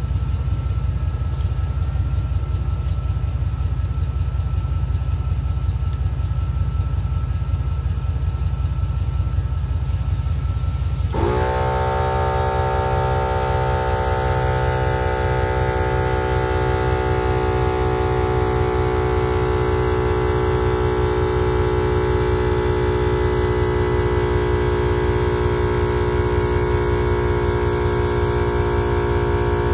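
A MaxiTrac 300 LPM 12-volt air compressor system runs with a low, steady drone while filling a flat tyre through a long air hose. About eleven seconds in, the air chuck goes onto the valve stem. A loud humming tone with many overtones starts suddenly, dips briefly in pitch, then holds steady as air flows into the tyre.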